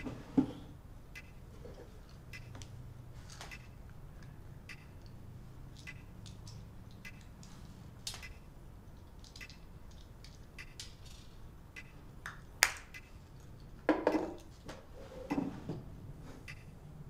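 Clock ticking in a quiet room, with a sharp knock just after the start, a single sharp click about two-thirds of the way through, and papers being handled at a desk near the end.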